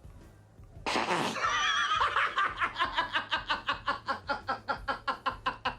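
A person breaking into loud, high-pitched laughter about a second in: a shrill, wavering first cry that turns into rapid, rhythmic ha-ha pulses, about five a second.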